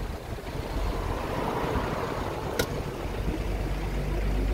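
Steady low engine rumble and road noise of a tourist road train, heard from on board as it drives along a street, with one sharp click about two and a half seconds in.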